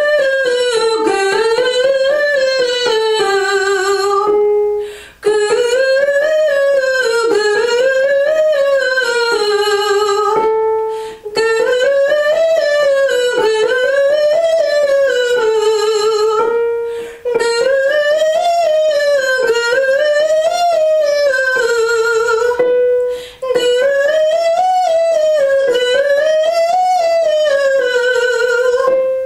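A woman singing the warm-up syllable "goo" on a five-note scale, up and down twice in each phrase, using mixed voice into head voice. Five phrases, each with a short breath between, each starting a step higher than the last.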